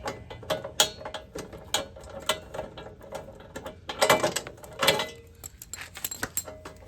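Socket ratchet wrench clicking in quick runs as a bolt is worked, with louder bursts of clicking about four and five seconds in.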